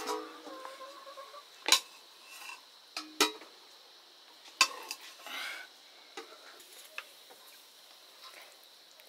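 Dishes and utensils clinking and knocking: a handful of sharp knocks spaced a second or so apart, two of them ringing briefly, with a softer scrape in between.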